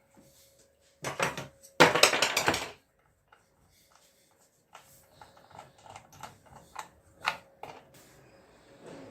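Metal parts and tools being handled during chainsaw repair work. A loud, rapid clattering rattle comes about one to three seconds in, followed by scattered light clicks.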